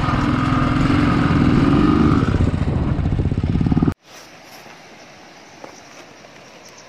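Motorcycle engine running as the bike rides along a gravel road. It cuts off abruptly about four seconds in, leaving a faint steady outdoor background.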